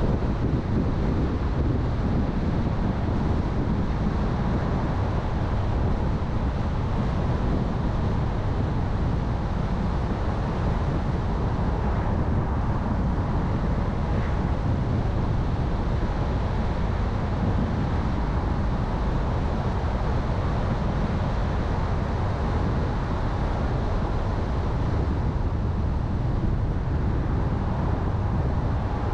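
A car driving at a steady pace: an even low rumble of tyres on the road and engine, with wind noise over it.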